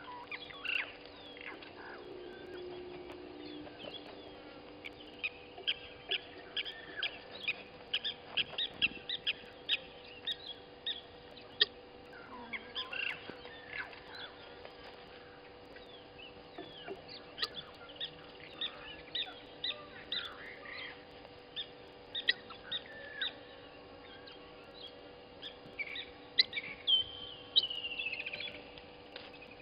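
Wild birds chirping and calling in the bush, in quick runs of short high notes, with a falling trill near the end. A faint steady hum runs underneath.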